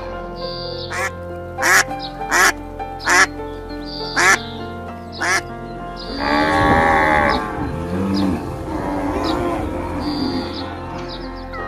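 Zebu cattle mooing over background music: one loud, long moo about six seconds in, then quieter lowing. Before it come six short, sharp calls in the first five seconds.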